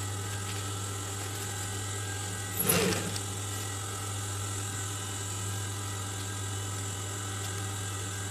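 Sewing machine running steadily with a constant hum while stitching the fabric of a cap brim, with one brief louder burst about two and a half seconds in.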